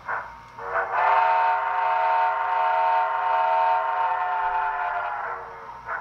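Sound unit of an Sn3 model narrow-gauge steam locomotive blowing one long steam whistle, about five seconds, with a slight rise in pitch as it opens. Slow, steady exhaust chuffs, about one and a half a second, come before and after it.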